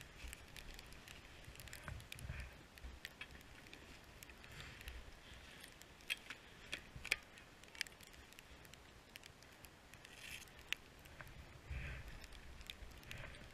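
Skis swishing through snow on downhill turns: a burst of rushing noise with a low rumble every couple of seconds. A handful of sharp clicks come in the middle.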